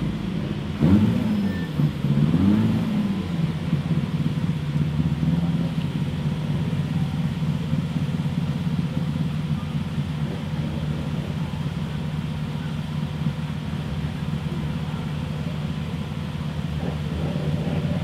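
Rally car engine running, blipped twice in quick succession about a second in so the pitch swoops up and back down, then settling into a steady idle.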